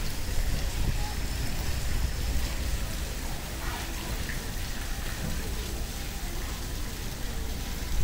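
Outdoor background noise: a steady low rumble with a faint murmur of distant voices.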